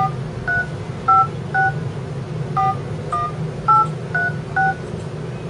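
DTMF keypad tones from a BiPad 3G tablet's phone dialer as a number is tapped in on the touchscreen: about nine short two-note beeps at an uneven pace, over a steady low hum.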